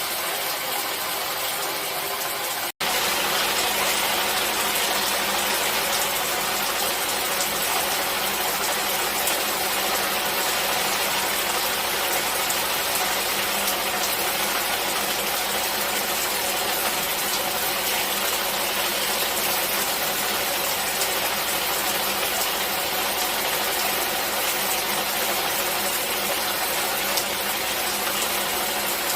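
Steady hiss of falling water. Near the start it cuts out for an instant, then resumes slightly louder with a deeper rumble underneath, as one water recording gives way to another.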